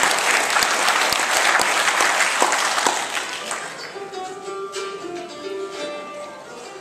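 Audience applause that fades away over the first three seconds, then plucked acoustic strings of a bluegrass band, mandolin and guitar, start sounding notes.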